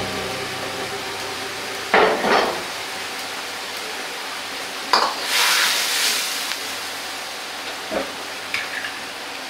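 Metal ladle knocking and scraping in a carbon-steel wok three times, about two, five and eight seconds in, over the steady sizzle of tofu in chili sauce cooking over a high gas flame. The sizzle flares up louder for about a second after the second knock.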